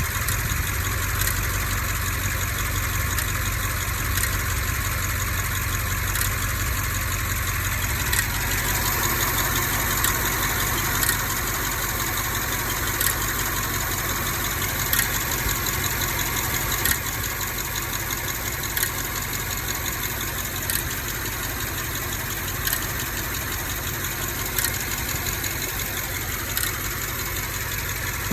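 BMW X5 M / X6 M 4.4-litre twin-turbo V8 idling, with a fast, light ticking and, from about eight seconds in, a sharper tick or stumble roughly every two seconds: the ticking and misfire the owner is documenting.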